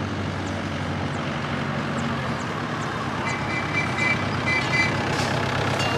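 A seafront land train's road-tractor engine running with a low hum as it drives up and slows, the hum easing after a couple of seconds. About halfway, a run of short high electronic beeps sounds for under two seconds.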